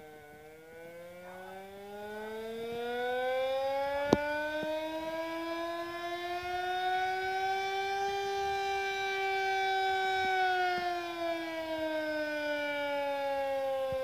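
Sentry outdoor warning siren sounding a test, its tone rising slowly in pitch for about eight seconds, holding, then winding back down near the end. A sharp click comes about four seconds in.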